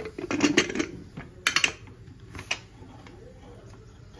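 Aluminium pressure cooker lid being fitted and locked shut: a quick clatter of metal clicks and knocks in the first second, then a sharp double click about a second and a half in and a single click about a second later.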